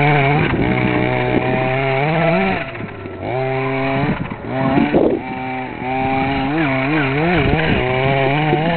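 Reely Carbon Fighter RC buggy's small two-stroke petrol engine buzzing as it drives, its pitch rising and falling with the throttle. It drops off briefly about three seconds in, then picks up again and wavers up and down near the end.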